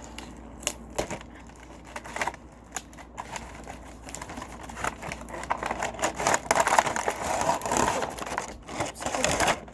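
A slime kit's packaging being opened by hand: scattered clicks and taps, then crinkling and rustling that grows louder in the second half.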